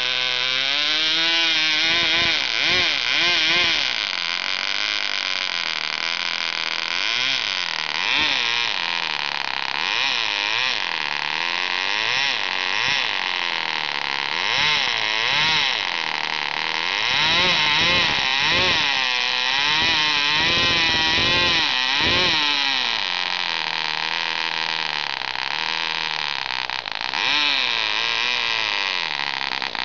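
Cox .049 Black Widow two-stroke glow engine, fitted with a Tarno carburettor, running with its speed rising and falling over and over as the throttle is opened and closed: good throttle response, though it runs a little rich when throttled up, which the owner takes to need more air through the air bleed.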